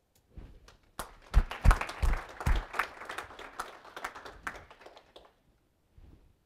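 Small audience applauding, starting about a second in and dying away after about four seconds, with a few louder, heavier claps near the start.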